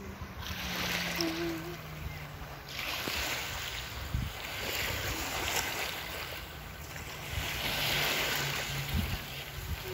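Small waves lapping onto a sandy shore of a calm bay, the wash swelling and fading every two seconds or so. Wind rumbles on the microphone.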